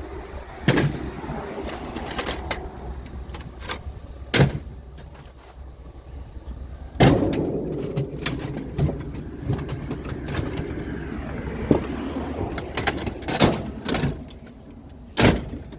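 A run of sharp knocks and clanks from scrap being handled. The loudest comes about seven seconds in and rings briefly. A low steady vehicle hum runs underneath.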